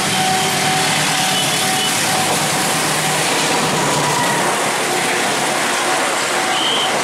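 Diesel-hauled passenger train passing close by at speed: a steady rush of wheel and rail noise. A thin steady tone runs underneath, and a high wheel squeal comes in near the end.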